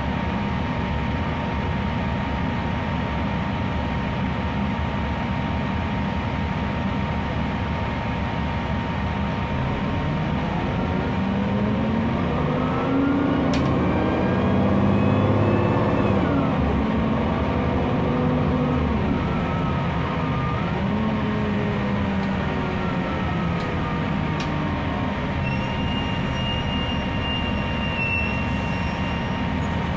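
2008 Gillig Low Floor transit bus running, its Cummins ISL diesel with Voith D864.5 automatic transmission, over a steady whine. Through the middle the engine note rises and falls and grows louder, as if the bus pulls away and works up through the gears. A brief high steady tone comes near the end.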